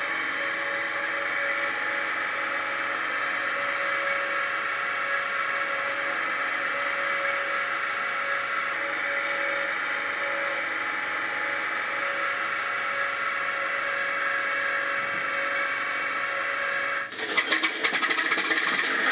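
Diesel engine sound of an HO-scale class 749 'Bardotka' diesel locomotive model, running steadily at idle just after starting up. About 17 seconds in it turns louder and rattling.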